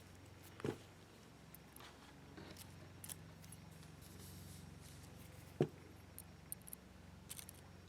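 Sparse small clicks and taps from the parts of a gutted 6-pin Sterling oval lock cylinder (plug and pins) being handled. The two sharpest clicks come about a second in and about two thirds through, over a faint low hum.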